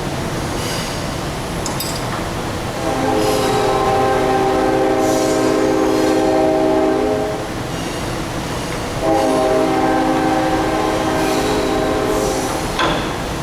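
Train horn sounding two long blasts, one of about four and a half seconds and one of about three and a half, over the steady rumble of a train passing.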